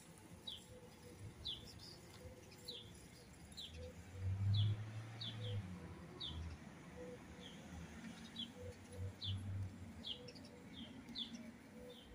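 A small bird chirping over and over, short high falling chirps roughly every half second. A low rumble swells about four seconds in and is the loudest part.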